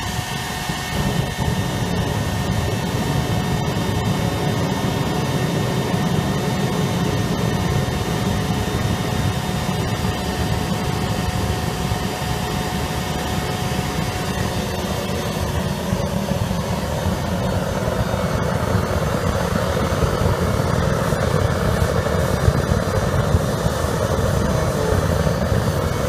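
Homemade propane-fired bucket furnace running at full blast: a steady roar of the burner flame and the forced-air blower through the furnace's black iron pipe, with the propane turned down.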